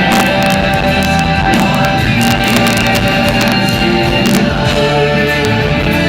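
Live rock band playing an instrumental passage: electric guitar over bass and drums, loud and steady, with no singing.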